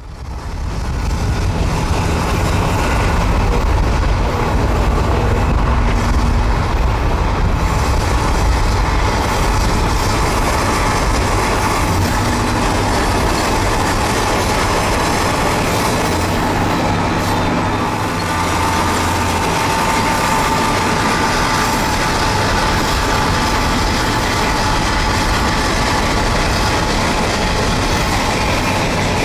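Freight train with empty covered hopper cars running at speed, heard from a vehicle pacing alongside it: a loud steady rumble of wheels on rail and locomotive engines. A thin steady whine comes in about two-thirds of the way through.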